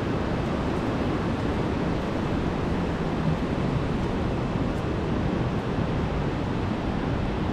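Steady rushing ambience of distant surf and light rain, with a low wind rumble on the microphone.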